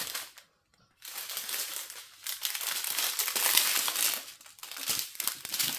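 Small plastic packets of diamond-painting drills crinkling as they are handled and flipped through, starting about a second in after a brief silence.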